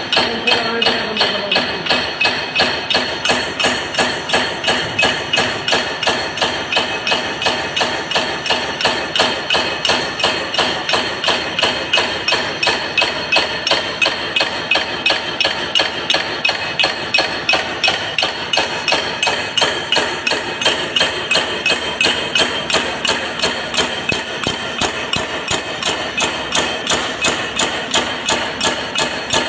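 Steady rhythmic knocking, about two to three strikes a second, over a continuous background of held tones.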